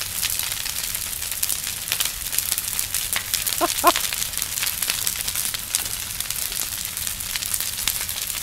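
Large bonfire crackling and popping irregularly. Two short, rising squeaks sound about four seconds in.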